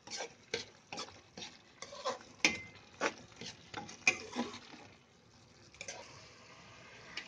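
A spatula stirring and scraping shredded chicken through thick tomato gravy in a metal kadai, with a stroke against the pan about two to three times a second and a faint sizzle underneath. The strokes die away about two-thirds of the way through, leaving mostly the low sizzle.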